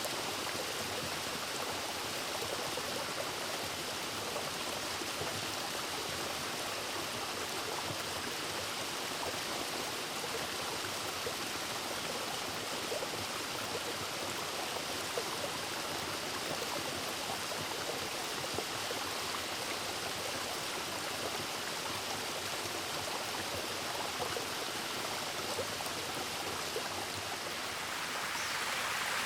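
Steady rush of water from a mountain stream and its small waterfall, growing louder and brighter in the last second or two.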